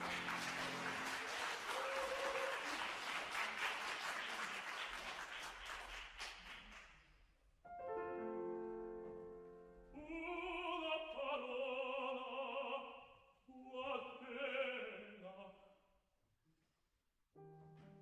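Audience applause for the first several seconds, fading out. Then piano chords, and an opera singer sings two short phrases over the piano. After a brief hush the piano comes back in near the end.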